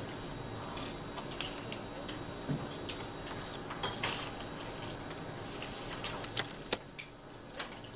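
Drawing tools handled on paper: a fine-liner pen making brief scratchy strokes, and a plastic drawing template being moved, with light taps and two sharp clicks about two-thirds of the way in, the loudest sounds.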